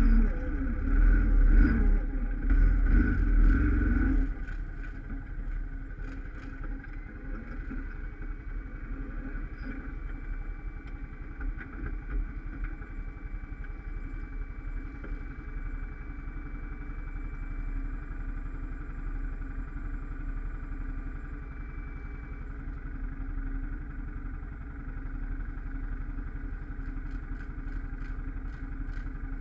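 ATV engine revving hard under load on a steep climb, then dropping suddenly after about four seconds to a steady, quieter running as the quad holds on the slope. A few light clicks come near the end.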